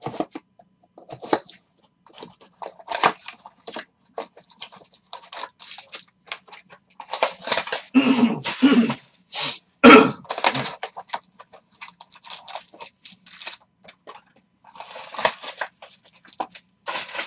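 A shrink-wrapped cardboard box of Clearly Donruss football cards being slit and unwrapped, then its foil card packs pulled out, with irregular rustling, crinkling and tearing of plastic and packaging. A sharp knock about ten seconds in is the loudest sound.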